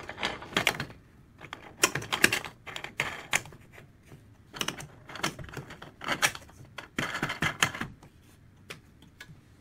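Bare aluminum screen-printing frame knocking and clicking against the metal clamps of a screen printing press as it is fitted and the clamp knobs are turned: irregular clusters of sharp clicks and knocks with short pauses between them.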